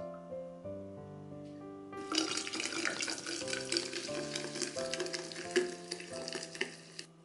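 Sparkling water poured into a glass over mint leaves and lime slices, splashing and fizzing with a dense crackle of bursting bubbles. It starts about two seconds in and cuts off suddenly just before the end, over background music.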